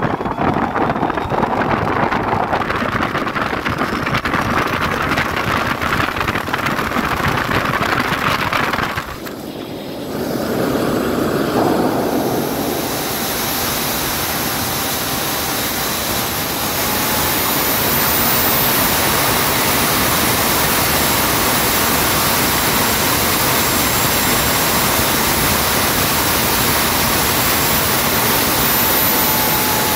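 Homemade turbocharger-based jet engine running on a test stand: a loud, steady rushing noise with a faint high whine. About nine seconds in the sound drops briefly, then comes back louder and hissier with the high whine held steady.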